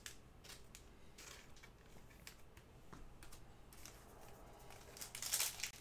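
Faint handling of trading cards: cards sliding and flicking against one another in scattered soft clicks and rustles, a little louder near the end, over a low steady hum.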